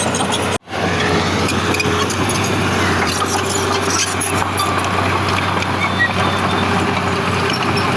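Heavy diesel earthmoving machinery running steadily with a constant low hum. The sound drops out completely for a split second about half a second in.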